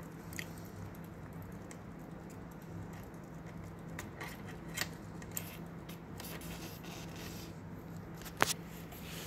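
Small metallic clicks and scrapes of a ring spanner being fitted onto and worked on a rim brake arm's pivot bolt, with one sharp click near the end. A steady low hum runs underneath.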